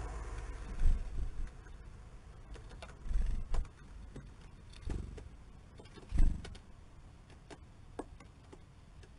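House sparrows and a greenfinch moving about a wooden feeder: a few low thumps of landing and wing flutters, the loudest about a second in and just after six seconds, and scattered sharp ticks of pecking at sunflower seeds.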